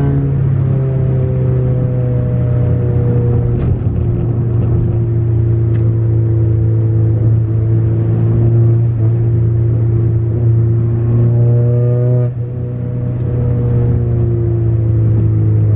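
Straight-piped, turbocharged 10th-gen Honda Accord exhaust with muffler and resonator deleted, droning steadily under way. The level dips briefly about twelve seconds in, then the note builds again.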